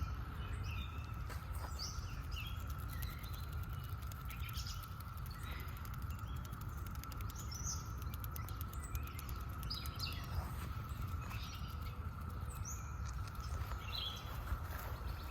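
Steady drone of a Brood X periodical cicada chorus, held at one pitch, with birds chirping briefly over it now and then and a low rumble underneath.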